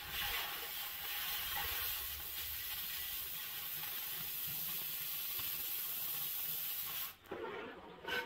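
Oxy-fuel cutting torch hissing steadily as it cuts through a steel pipe wall. The hiss stops abruptly about seven seconds in, followed by a couple of short noises near the end.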